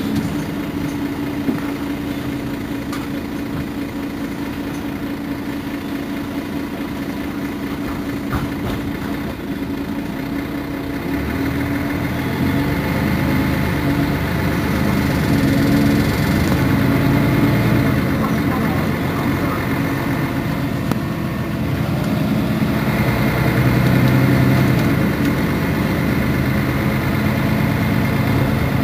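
Mercedes-Benz Citaro Facelift city bus engine idling steadily. About a third of the way in it comes under load, its revs rising and falling, with another rise after a brief dip near the end.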